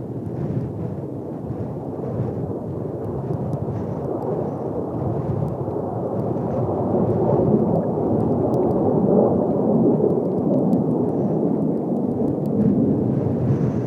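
Distant roar of Blue Impulse Kawasaki T-4 jet trainers, a deep rumble that grows louder about halfway through as the formation comes nearer, mixed with wind buffeting the microphone.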